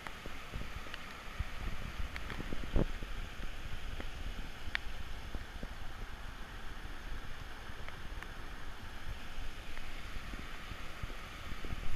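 Small mountain stream running strongly over low rock cascades: a steady rush of water. Wind rumbles on the microphone, with a few knocks, the loudest about three seconds in.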